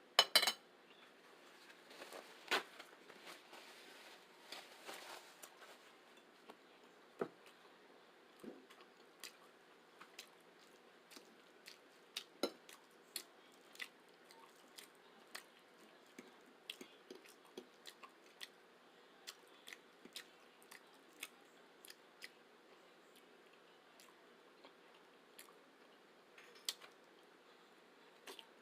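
A person chewing and eating spaghetti: irregular wet mouth clicks and smacks, with a couple of louder clicks near the start.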